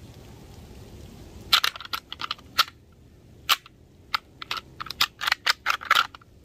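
Deer rattling: a fast, irregular run of sharp clacks and clicks starting about a second and a half in, imitating two bucks sparring to draw in a buck.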